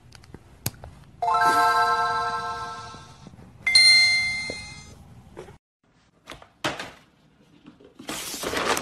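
Two chime tones, each struck and ringing away over about two seconds, the second one higher. A short burst of rustling noise comes near the end.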